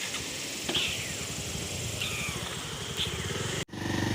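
Outdoor dusk ambience: a steady high-pitched insect drone with a few short, falling chirping animal calls about a second apart. Just before the end it cuts abruptly to a motorcycle engine running.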